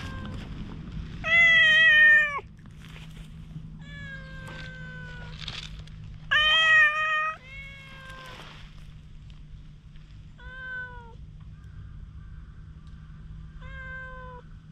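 Stray cat meowing repeatedly: six drawn-out meows, the loudest about a second in and about six seconds in, several sliding down in pitch at their end.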